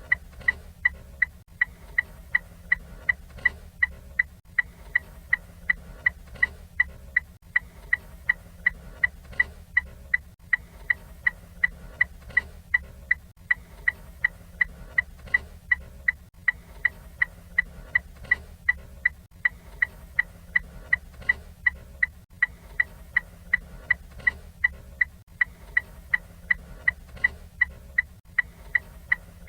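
Ford Fiesta turn-signal indicator ticking in a steady, even rhythm, each tick sharp with a short high ring.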